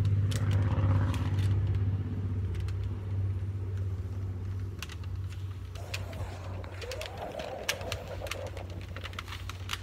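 Masking tape and paper being peeled off a painted surfboard, with scattered short crackles and tearing clicks. Under it runs a steady low hum that is loudest at first and slowly fades.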